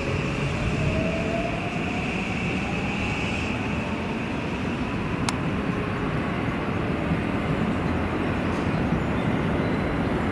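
JR West 271 series electric multiple unit approaching at low speed, with a steady rumble of wheels and running gear. A faint rising whine runs through the first few seconds, and a single sharp click comes about five seconds in.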